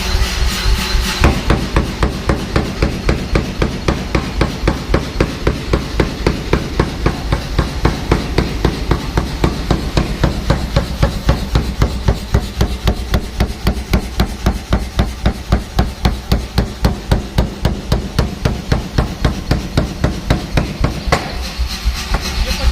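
Pneumatic air forging hammer running, its ram striking in a fast, even rhythm of about four blows a second over a steady low hum. The blows start about a second in and stop near the end.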